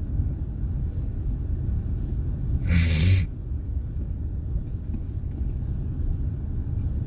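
Steady low rumble of a car on the road, engine and tyre noise, with one brief loud noise burst about three seconds in that lasts about half a second.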